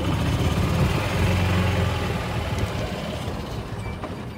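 Golf cart running as it drives along, a low steady hum that grows louder over the first second or so and then slowly fades.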